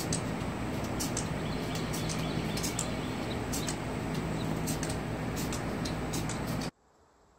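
Coquerel's sifaka giving its "shu-fawk" call, the alarm call sifakas give at ground predators, in a field recording with a steady background hiss and many short, sharp high-pitched clicks. The recording cuts off abruptly near the end.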